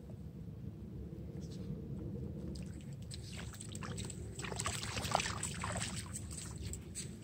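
A pug's paws splashing as it wades through shallow lake water, the splashes bunching from about three seconds in and loudest a little past the middle, over a steady low rumble.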